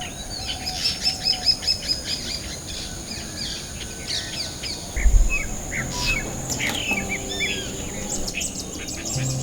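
Several birds chirping and calling, with a quick run of repeated high notes in the first two seconds and scattered whistled glides after. A brief low thump about five seconds in.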